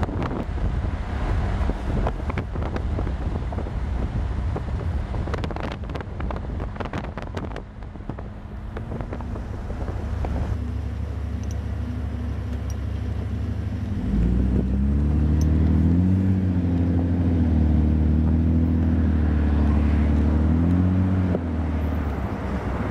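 Wind buffeting the microphone at first. Later a heavy engine runs loudly for several seconds, its low hum rising and falling in pitch, and stops near the end.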